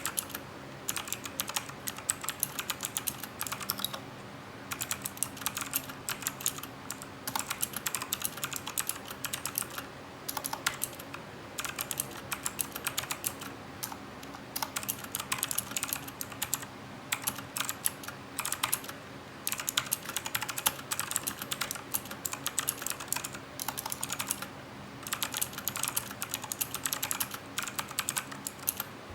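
Typing on a Cooler Master CK350 mechanical keyboard with Gateron Blue clicky switches: fast runs of sharp key clicks in bursts of a few seconds, with short pauses between them.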